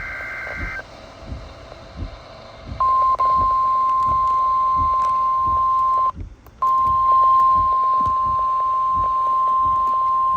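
NOAA Weather Radio alert signalling: the tail of a SAME digital header burst, a buzzing two-tone data chirp, then about 3 s in the steady 1050 Hz Warning Alarm Tone that announces a new warning, with a brief dropout around 6 s.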